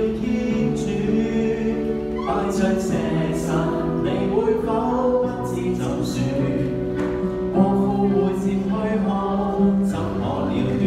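A man singing a hymn into a handheld microphone, accompanied by an electronic keyboard playing held chords.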